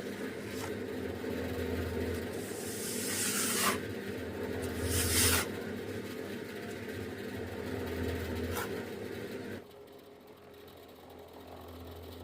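A small motor humming steadily, with two short rushing hisses over it; the hum drops away sharply about nine and a half seconds in.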